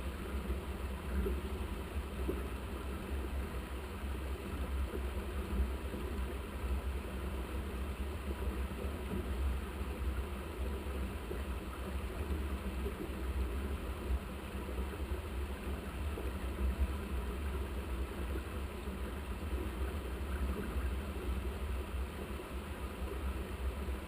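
Steady low rumble with a hiss, like wind buffeting the microphone during a mountain bike ride, fluttering unevenly with no breaks.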